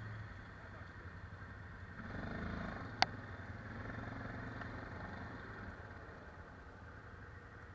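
ATV engines running at low revs, fairly quiet, swelling briefly about two seconds in as the throttle is opened. One sharp click about three seconds in.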